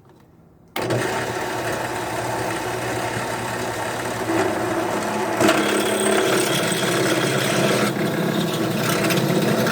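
Drill press switching on about a second in and running steadily, then an Irwin step drill bit cutting into a flattened dome strut, the sound getting louder and rougher about halfway through.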